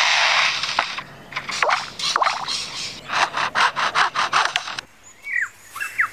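Superb lyrebird mimicking a chainsaw: a steady rasping buzz for about the first second, then a run of short broken rasping strokes. Near the end it gives a few short, descending whistled notes.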